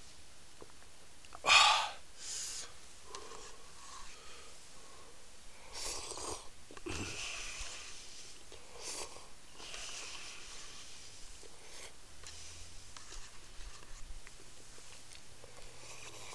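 Close breathy noises: one loud, sharp sniff or snort about a second and a half in, then several softer breathy puffs.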